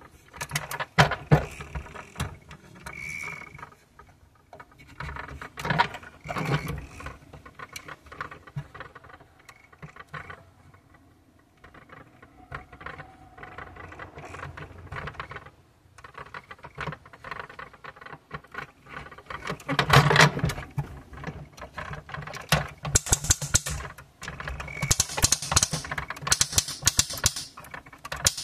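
Plastic clicks, knocks and rattles from a toy tow truck's crane boom and hook being moved by hand, with a burst of loud clicking about two-thirds through and quick rattling near the end.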